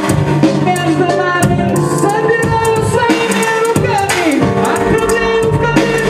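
Beatboxing into a hand-cupped microphone: vocal drum hits and rattles over sustained hummed tones, with a falling pitch sweep about four seconds in.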